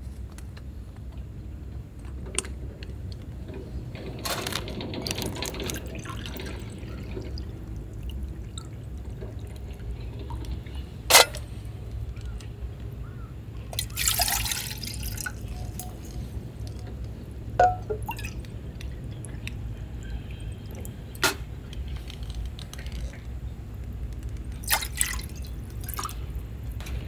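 Liquid being poured and dripping, in two short spells, with a few sharp clicks over a steady low rumble.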